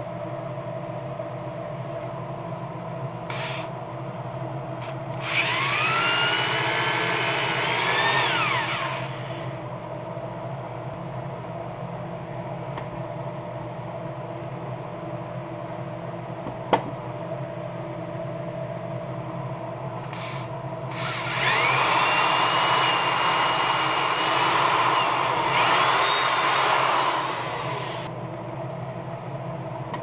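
Cordless drill driving screws through a faceplate into a wooden bowl blank, in two runs of about four and seven seconds. Each run has a whine that climbs in pitch and drops as the drill stops. A single sharp click comes between the runs.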